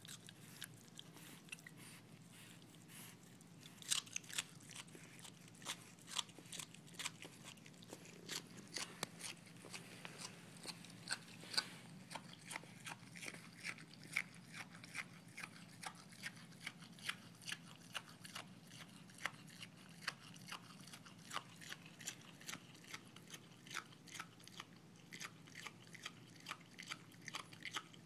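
Virginia opossum chewing broccoli with its mouth open: a run of short, sharp chews, sparse at first, then about two to three a second from about four seconds in.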